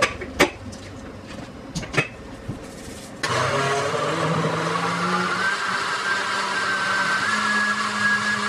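A few clicks as the blender jar is handled, then about three seconds in a countertop blender's motor starts and runs steadily, its pitch rising as it spins up and stepping up once more near the end, as it purees a thick mixture.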